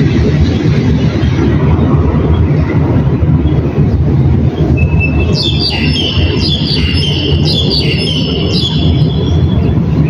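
A loud, steady low rumble of vehicles. About halfway through, a small bird starts calling, a run of short high chirps repeated about twice a second for some four seconds.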